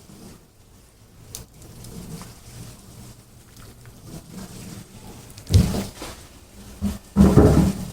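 A canary bathing, splashing water with its wings in two short bursts, the second longer, about five and seven seconds in.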